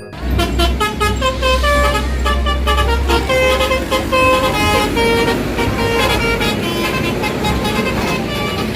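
Indonesian 'telolet' bus horn playing a multi-note tune, its notes stepping up and down in pitch. A low engine rumble sits under it for the first three seconds or so.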